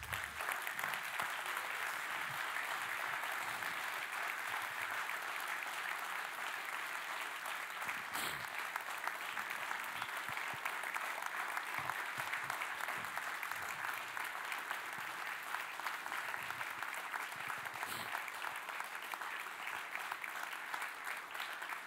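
A congregation applauding, a long, steady round of clapping that eases slightly near the end.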